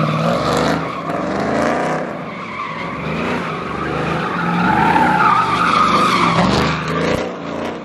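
Ram pickup truck doing donuts: its engine is revved hard and held high while the rear tires squeal and skid on the asphalt, the squeal's pitch wavering as the truck swings round.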